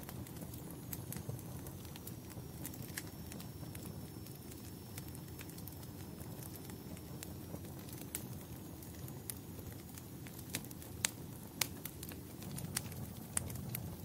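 Wood fire crackling in a fireplace: a steady low rumble of flames with scattered sharp pops and snaps, which come more often and louder in the last few seconds.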